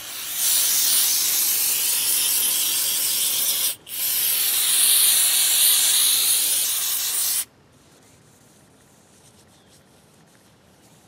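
Aerosol spray can hissing in two long sprays, with a short break just under four seconds in, as solvent is hosed down a hydraulic cylinder's chrome rod. Faint rubbing of a rag wiping the rod follows.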